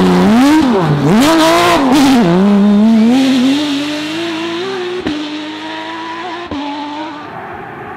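Porsche 911 GT3 rally car's flat-six engine revving hard, its note swooping up and down several times with the throttle and gear changes, then climbing steadily and growing fainter. Two sharp cracks come in the second half.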